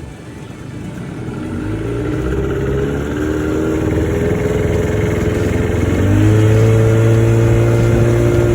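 A boat's outboard motor speeds up, its pitch climbing over several seconds. It then runs steady and loud at cruising speed.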